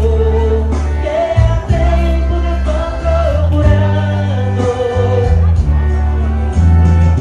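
Live band music with singing: a melody line over steady, changing bass notes.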